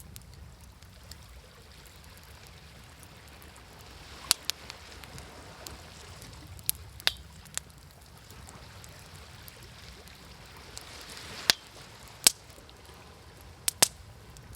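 Wood fire crackling with sharp pops over the wash of waves. The waves swell about four seconds in and again around ten seconds. The loudest pops come in the last few seconds, two of them in quick succession near the end.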